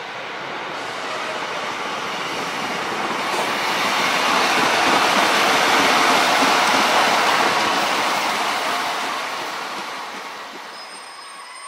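Sprinter diesel multiple unit running past on the line. Its engine and wheel noise grows louder, is loudest about halfway through as it goes by, then fades as it draws away.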